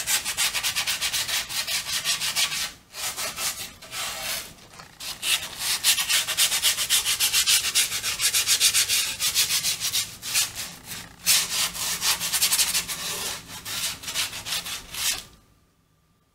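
Grip tape being sanded along the edge of a freshly gripped skateboard deck: quick back-and-forth scraping strokes, about four or five a second, with a few short pauses, stopping shortly before the end. This is the sanding pass that scuffs the grip tape down along the board's edge.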